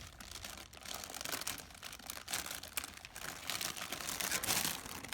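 Rustling and irregular light clicks of leafy greens being handled and laid down, busiest in the second half.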